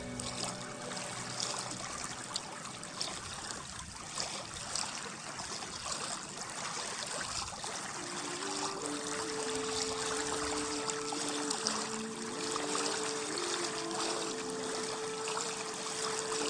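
Water lapping and trickling among stones at the river's edge, with small splashes. About halfway through, a soft melody of held notes comes in over it.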